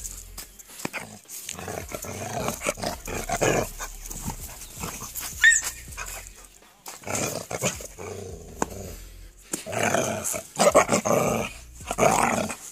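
Dogs growling in rough play, in irregular bursts that come and go, loudest in the last few seconds.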